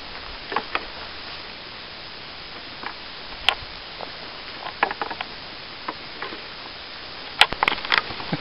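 Walking through long grass: a steady rustling hiss with scattered sharp ticks and clicks, most of them bunched together near the end.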